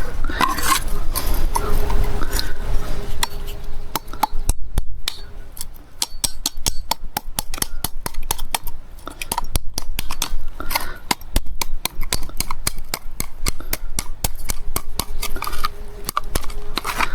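Hard plastic PVC irrigation pipe and fittings handled and worked, giving a long run of quick, irregular clicks, knocks and scrapes.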